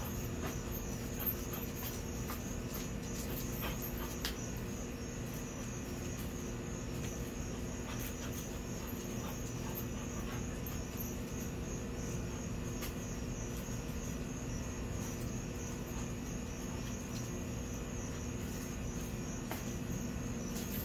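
Crickets chirping steadily in a rapid, even pulse over a constant low hum. A few faint clicks and scuffs come in the first few seconds.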